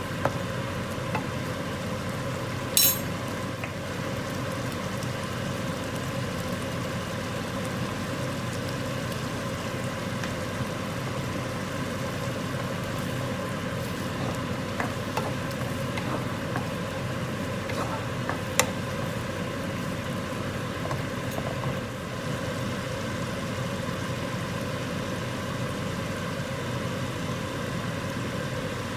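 Steady frying sizzle from a pan of nam prik ong cooking, with a couple of sharp utensil clinks, about three seconds in and again past halfway.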